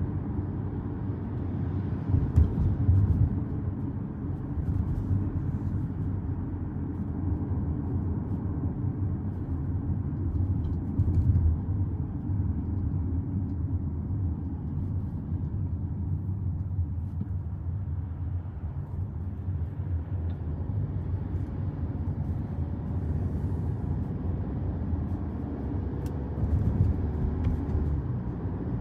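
Car driving along a road: a steady low rumble of engine and tyres, with a faint rising whine in the last few seconds.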